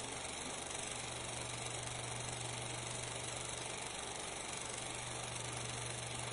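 8 mm film projector running: a steady mechanical noise with hiss and a constant low hum.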